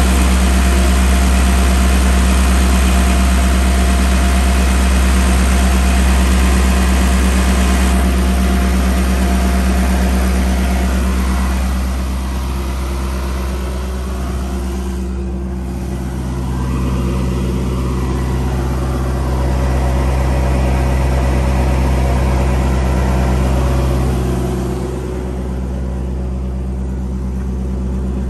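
John Deere diesel engine of a TSE UP85BDH underground cable puller running steadily at idle, a deep even drone that gets somewhat quieter about twelve seconds in.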